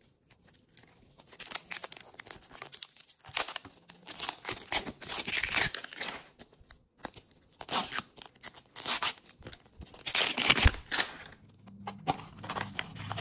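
Wrapping being torn and peeled off a toy capsule ball, in ragged, irregular bursts of tearing and crinkling.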